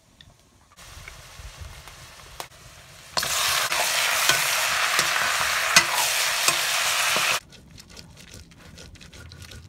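Buffalo meat frying in a hot wok and stirred with a ladle: a steady sizzle with the clicks and scrapes of the ladle, much louder from about three seconds in, cutting off suddenly about seven seconds in. After it, quieter gritty scraping of spice paste being ground by hand on a grinding stone.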